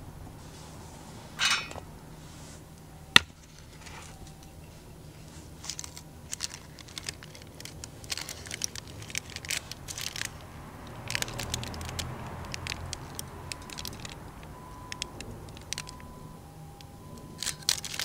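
Aluminium mess tin and baking paper being handled: a sharp metal knock about three seconds in, then crinkling and rustling of the paper with light clicks and taps.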